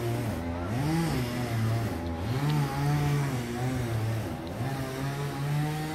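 A low voice humming a slow tune: held notes that glide up and down between them, close to the microphone.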